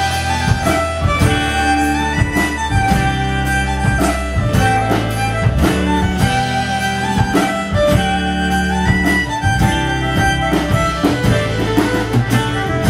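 Live band playing: fiddles and acoustic guitar carrying the tune over a steady drum beat.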